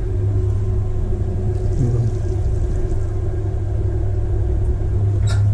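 Electric potter's wheel motor running with a steady low hum.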